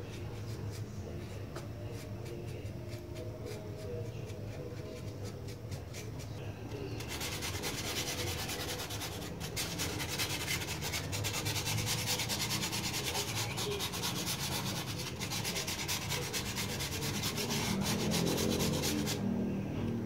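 Styrofoam sheet being worked over by hand: faint scratchy brush strokes at first, then from about seven seconds a steady, louder rubbing as a pad is scrubbed over the white-coated foam, stopping about a second before the end.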